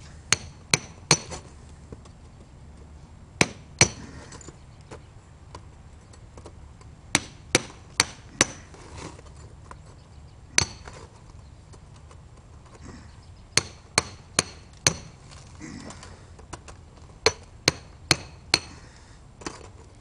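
Hammer striking a steel chisel to chip out the plaster fire insulation packed inside a safe's wall. Sharp strikes, each with a short metallic ring, come in groups of two to five about half a second apart, with pauses of a few seconds between groups.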